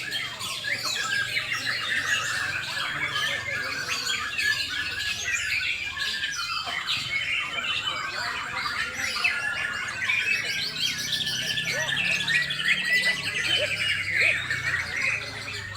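Several white-rumped shamas (Bornean murai batu) singing at once in competition, a dense overlapping chorus of rapid trills and whistled phrases.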